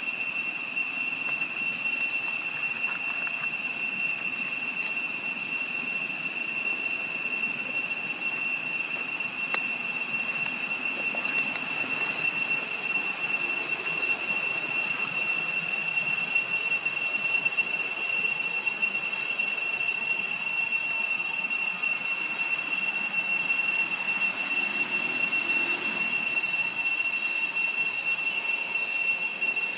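Steady high-pitched insect drone: one unbroken whining tone with a fainter, higher overtone, over a soft hiss.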